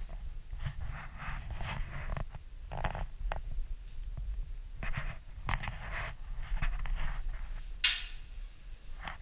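Low rumble and rubbing from a handheld camera being carried through a room, with irregular scuffs and knocks as it moves and one sharper scrape near the end.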